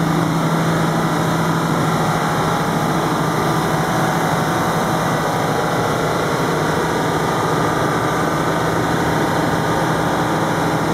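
Detroit diesel engine of a 250 kVA generator set running steadily at a constant speed.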